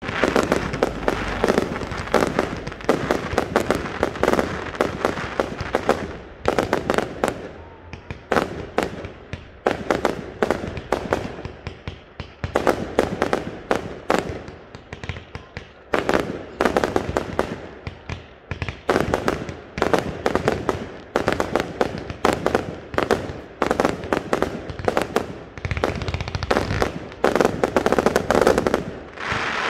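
Fireworks display: a rapid, dense series of bangs and crackles from shells bursting, several a second, with brief lulls between volleys.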